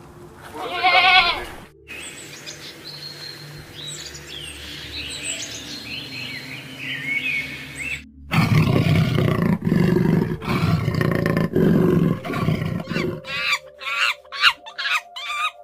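A goat bleats once with a wavering voice, then a bird chirps and whistles for several seconds. A loud, low, rough sound follows from about the middle for some five seconds, and near the end comes a quick run of short calls, about three a second.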